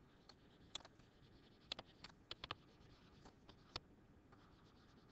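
Faint taps and scratches of a stylus tip on a tablet screen while handwriting, heard as a handful of short, scattered clicks.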